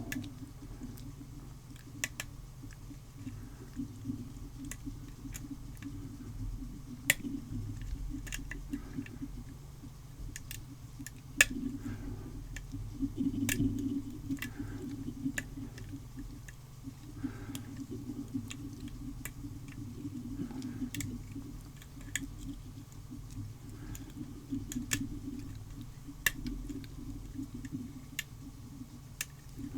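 Lock picking an ABUS 83AL/45 padlock: a pick and tension wrench scraping and rattling in the cylinder against its serrated and undercut security pins, with scattered sharp clicks.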